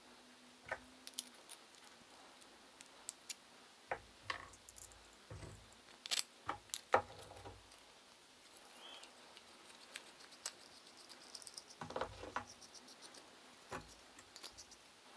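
Light clicks and taps of metal hardware being handled, threaded rod, washers and nuts, together with soft knocks of plywood clamp knobs and fence pieces on a workbench. The sounds are scattered, with a busier cluster around the middle and another near the end.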